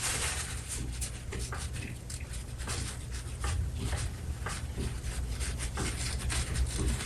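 Irregular light scratching and rubbing from hand-polishing the small brass ball contacts of a Rock-Ola 449 jukebox's write-in readout mechanism, over a low steady hum.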